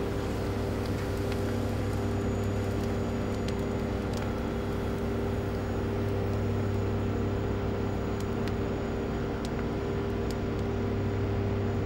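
A steady low mechanical hum with a few constant tones over a soft hiss, with a few faint clicks.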